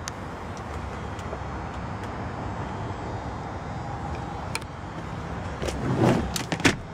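Steady hum of motor-vehicle background noise. A few sharp clicks come about four and a half seconds in, then near the end a louder cluster of clicks and rustling as a hand handles the front seat's backrest.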